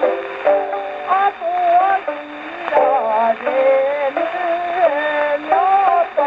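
Acoustic Victrola gramophone playing a 78 rpm shellac record of a Japanese folk song: women's voices sing long, bending, ornamented lines. The sound is thin and boxy, with no deep bass or crisp top.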